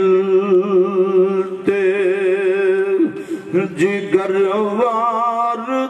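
A man singing a devotional Punjabi verse without accompaniment, holding long, wavering notes. The line breaks off about three seconds in, and he then takes it up again on higher, rising notes.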